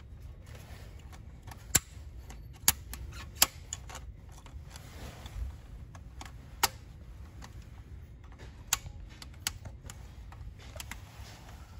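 Scattered sharp clicks and taps of pliers and hose clamps being handled in a car's engine bay, irregular and a second or more apart, the loudest few in the first half.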